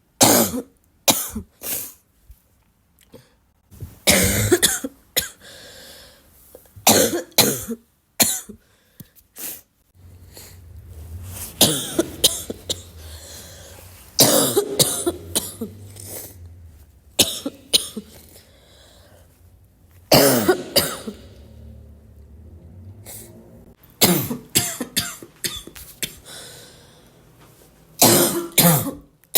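A person's congested, barking cough: short runs of one to several harsh coughs every few seconds, with quieter breathing noise between the bouts.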